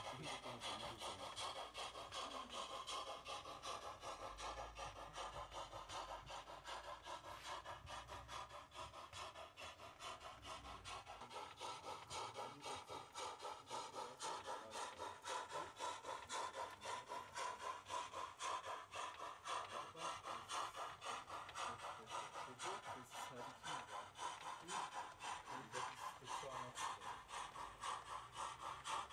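Model steam train running along the layout track: a steady, fast, rhythmic rasping with a hiss.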